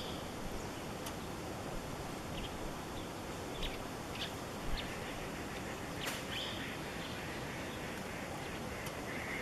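Outdoor forest ambience with a steady hiss and a few short, high bird chirps scattered through it, plus one sharp click about six seconds in.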